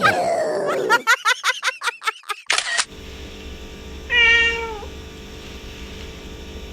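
A domestic cat meowing: one drawn-out meow about four seconds in that drops in pitch at the end. It comes after a quick run of short, clipped sounds and a brief burst of noise in the first three seconds.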